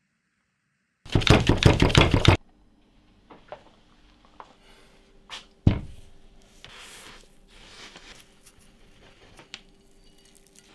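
A loud, dense crackling burst lasting just over a second, then scattered light clicks, a single sharp knock, and soft gritty rustling as a steel file blade is moved through a tray of sand.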